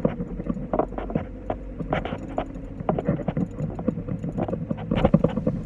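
Irregular knocks and rattles inside a moving Toyota car's cabin, over a steady low engine hum, as the car is driven forward.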